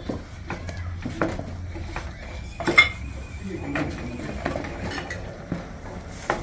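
A utensil knocking and scraping against a cooking pot as thick, sticky ugali is stirred, in irregular strokes, with one sharper clank about three seconds in that rings briefly.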